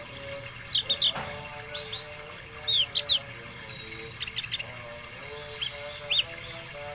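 Caged songbird calling loudly in short, sharp chirps, in clusters of two to four notes every second or so, including one quick rattled run of notes about four seconds in.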